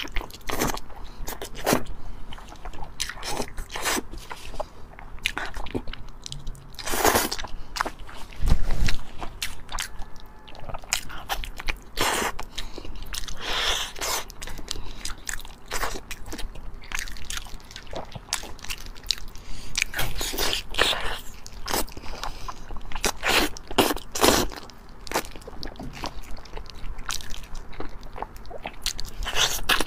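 Close-up eating sounds: biting, chewing and tearing sticky braised pork with gloved hands, in irregular wet clicks and smacks. One heavier thump about eight and a half seconds in.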